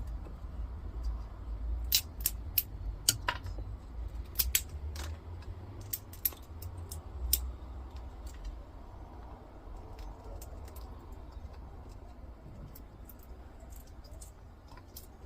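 Hand snips clicking and cutting at the tape and plastic around a small transformer's copper winding, in irregular sharp snips and clicks that come thickest in the first half and thin out later.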